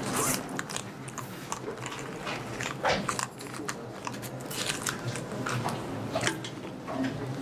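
Irregular small clicks, crackles and rustles, scattered unevenly over a low steady hum.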